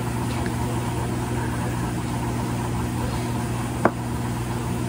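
A steady low machine hum, even in level, with one short click a little before the end.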